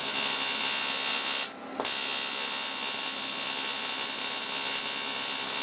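TIG arc brazing with bronze filler: the arc hisses and buzzes steadily with a thin electrical whine. It breaks off about a second and a half in and restrikes with a click a moment later.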